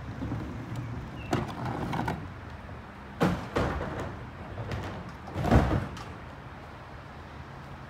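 Clatter of a plastic wheeled recycling cart being handled at the back of a pickup truck and trailer, with two heavy thumps about three and five and a half seconds in, the second the loudest, over a steady low hum.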